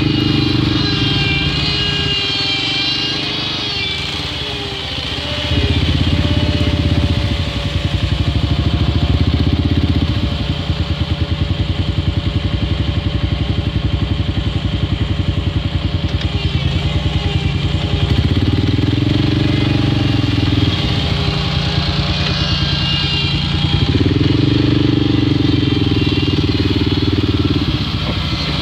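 Engine of a tracked off-road wheelchair running under load as it crawls through tall grass, its note rising and falling with the throttle and getting louder about five seconds in.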